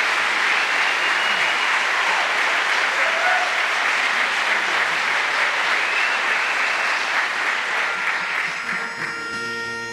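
Audience applauding steadily, dying away near the end as a held pitched chord begins to sound.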